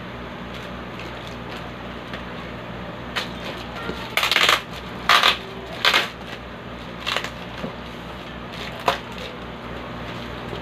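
Packing tape on a cardboard box being cut and pulled free with a small cutter: several short, loud tearing noises between about three and nine seconds in, the loudest around four to six seconds, over a steady low hum.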